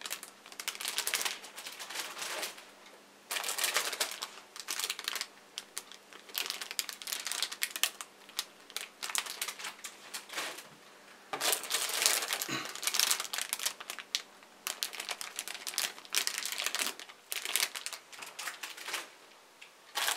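Clear plastic bags holding model-kit runners crinkling and crackling as they are handled, in irregular bursts with short pauses between.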